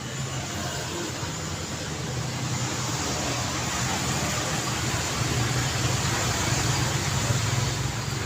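Road traffic: engine hum and tyre noise from passing vehicles, growing louder from about two seconds in as a vehicle comes close, loudest near the end.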